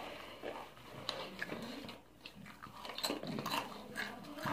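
Tortilla chips being bitten and chewed close to the microphone, with irregular crisp crunches.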